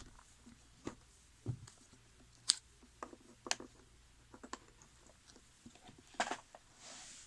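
Scattered light clicks and taps of an IEC power lead and its plastic plugs being handled and turned over for a close look, with a dozen or so separate small knocks and the sharpest click about two and a half seconds in.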